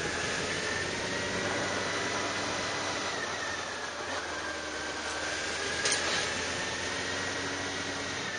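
Steady running noise of a moving vehicle, with a thin high whine that drifts slowly up and down in pitch and one sharp click about six seconds in.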